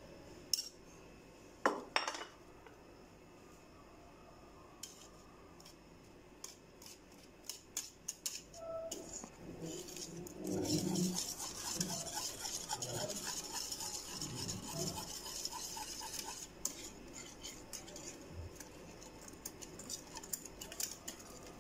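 A metal wire whisk beating spice mix into yogurt in a bowl: fast clicking and scraping of the wires against the bowl, busiest in the middle and thinning out toward the end. A couple of sharp knocks come first, before the whisking starts.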